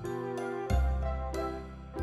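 Instrumental background music: a bass line with notes changing every half second or so, under high chiming notes.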